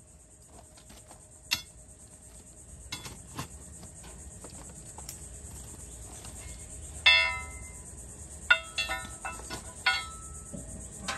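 Steel of a rotary cutter being knocked about: a series of separate metal clanks, each ringing briefly, the loudest about seven seconds in, with a steady high hiss underneath.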